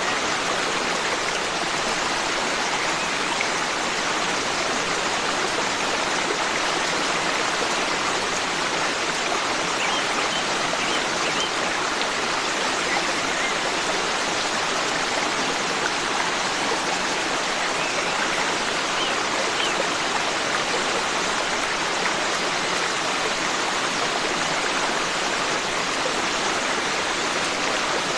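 Forest stream flowing steadily, an even rush of water over rocks. Faint short bird chirps come through a couple of times.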